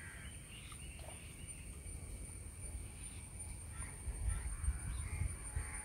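Quiet outdoor pond-side ambience: a steady high insect drone, a few faint bird chirps, and a low rumble that grows stronger about four seconds in.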